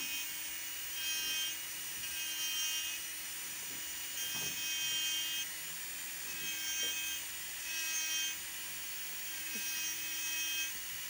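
Strong electric manicure drill running with a conical bit against the cuticle: a steady high whine that grows louder and brighter about six times, for a second or less each time.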